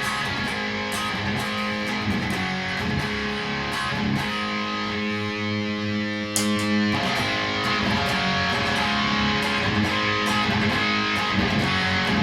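Electric guitar played through a Boss Katana 100 amp, strumming chords and picking notes; it gets louder about six seconds in.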